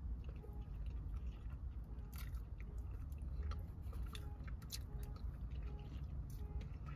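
Close-up chewing of a bite of glazed cake donut with Oreo crumbles: soft, moist mouth sounds with scattered faint clicks, over a low steady hum.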